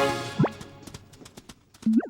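Cartoon soundtrack: a music chord fading out, a quick rising whistle-like glide about half a second in, a few faint clicks, then a short tone that bends upward near the end.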